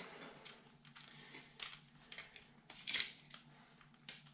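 Faint clicks and light knocks of tools and metal being handled, loudest about three seconds in, with another knock just after four seconds.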